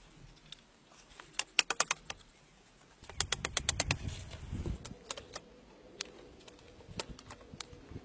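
Bamboo stakes clicking and knocking against each other as they are fitted into a bamboo fence frame: two quick runs of sharp clicks, then a few single knocks.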